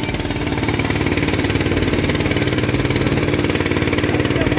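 Small engine of a motorized getek river boat running steadily, with an even, fast pulsing beat.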